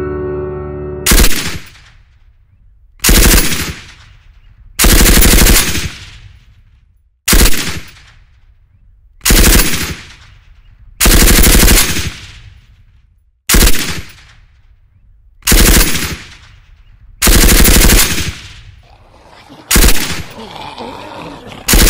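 About ten loud, harsh bursts of crackling noise, one roughly every two seconds, each lasting under a second and fading out: sound-design hits in a film's opening montage.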